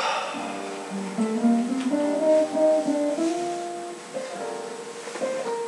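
Guitar music: plucked notes picking out a melody that steps up and down.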